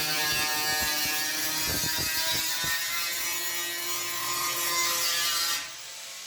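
A workshop tool running steadily, with a whirring tone and scattered clicks and knocks. It stops near the end.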